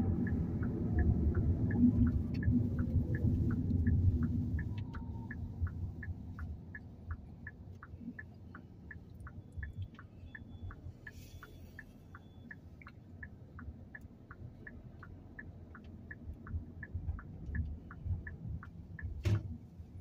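Car turn-signal indicator ticking steadily, about three clicks a second, heard inside the cabin. Under it, engine and road rumble with a falling whine, loud for the first few seconds and then dying down as the car slows. A single sharp knock near the end.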